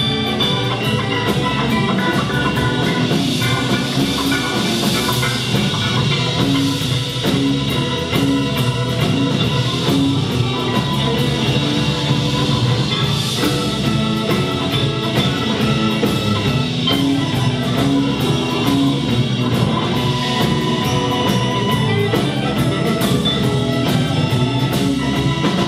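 Blues band playing live without vocals: guitar over bass and drum kit, in an instrumental passage between sung verses.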